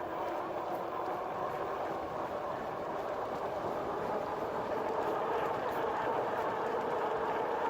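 Steady riding noise from a 2018 RadRover electric fat-tyre bike under way: tyres rolling on the road and wind on the microphone, an even rumbling rush with a faint steady hum in it.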